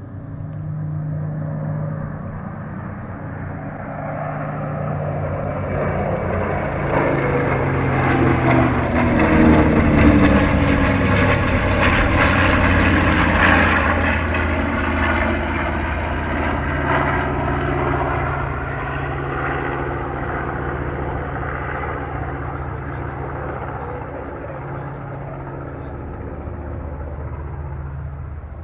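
A formation of small propeller planes flying over. Their engines get louder to a peak about ten to fourteen seconds in, drop in pitch as the planes pass, then fade slowly.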